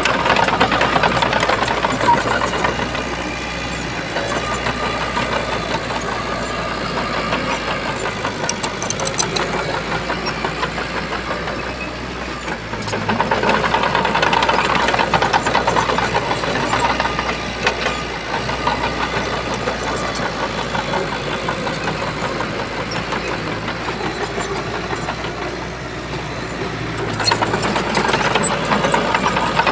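Heavy diesel engine of a bulldozer running under work load. It grows louder for a few seconds three times: at the start, about halfway through, and near the end.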